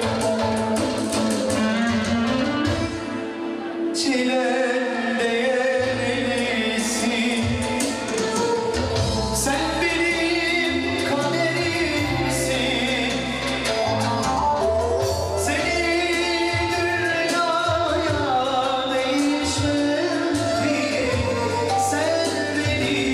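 Slow song with a singer over instruments, playing continuously as dance music, with a brief lull about three seconds in.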